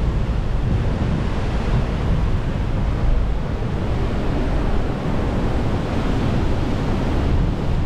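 Steady rush of ocean surf, with wind buffeting the microphone in a heavy low rumble.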